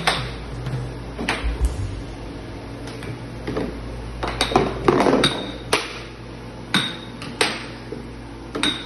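Air hockey puck struck by plastic mallets and knocking off the table's rails: about a dozen sharp clacks at uneven intervals, with a quick flurry of hits about halfway through. A steady low hum runs underneath.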